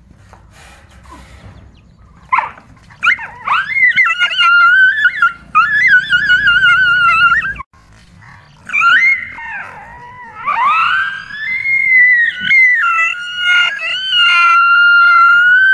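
A dog howling and yelping in long, high, wavering cries of distress, with a short break about eight seconds in.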